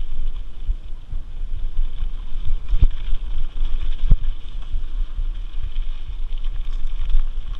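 Wind buffeting the microphone over the rumble of a mountain bike rolling fast down a dirt singletrack, with a steady hiss of tyres on dirt. Two sharp knocks, about three and four seconds in, as the bike jolts over bumps.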